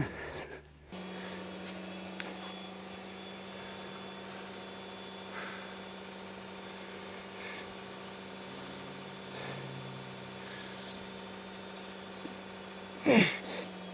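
Steady low electrical-sounding hum, with a few faint soft puffs of breath and, near the end, one loud short vocal sound falling steeply in pitch.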